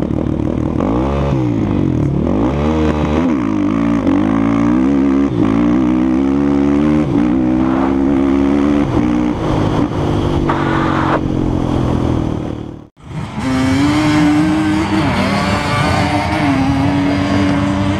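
Suzuki LTR 450's single-cylinder four-stroke engine at full throttle on a dirt drag run, its pitch climbing and then dropping again and again as it shifts up through the gears. After a brief break about 13 s in, an engine runs at a steady pitch with small rises and dips.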